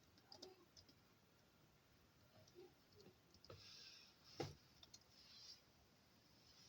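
Faint, scattered key clicks on a MacBook laptop keyboard as a login password is typed, with one sharper click about four and a half seconds in.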